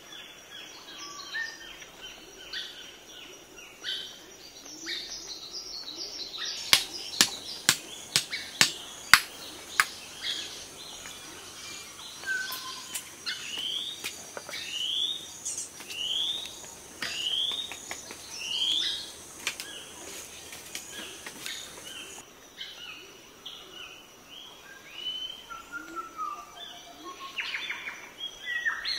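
Wild birds chirping and calling, with a run of five rising whistled calls in the middle. About a quarter of the way in, a quick series of about eight sharp knocks stands out as the loudest sound.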